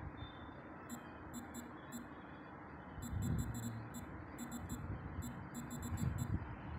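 Smartphone on-screen keyboard clicking with each keypress: short, sharp ticks in irregular runs, a few in quick bursts, with a couple of soft low thuds underneath.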